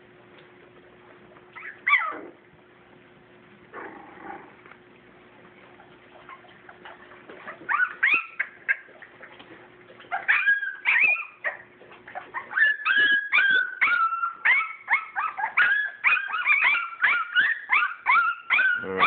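English springer spaniel puppies whimpering and yelping for their mother: a few scattered high cries and one loud yelp about two seconds in, then from about ten seconds on near-continuous crying from several pups.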